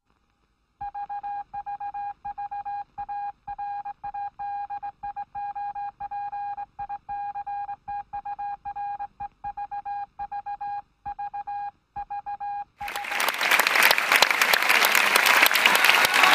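An electronic beep tone keyed on and off in an irregular string of long and short beeps, like a Morse-code signal. About thirteen seconds in it gives way abruptly to louder audience applause in an open-air theatre.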